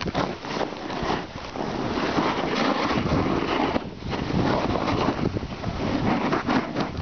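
Blizzard wind buffeting the microphone in loud, gusting rushes, dipping briefly about four seconds in.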